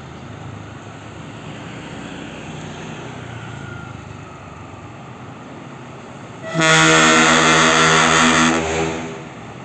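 Passing bus engine noise, then one loud blast of a bus's ship-style air horn ('klakson kapal') lasting about two seconds, starting about two-thirds of the way in.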